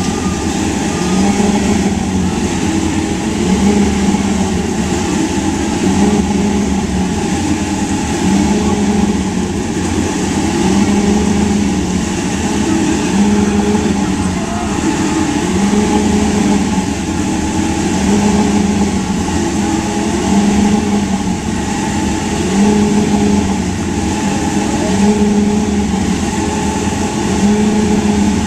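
V8 Supercar engine running loud and steady, its note rising and falling in a regular cycle about every second and a half.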